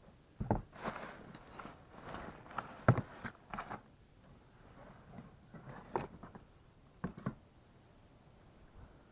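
Handling noise: a run of irregular knocks, clunks and rustles, the sharpest knock about three seconds in, then a few more single knocks later.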